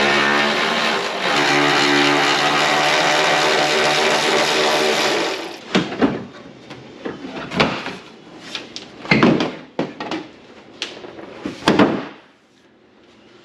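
A loud, steady droning hum with many even overtones stops about five and a half seconds in. After it comes a run of separate knocks and clanks, like metal parts being handled or tools being set down.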